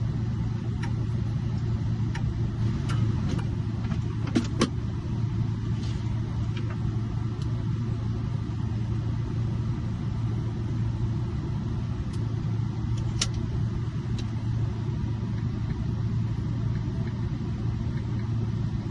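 A vehicle engine idling with a steady low hum, with a few sharp light clicks, a quick pair about four and a half seconds in and another near thirteen seconds.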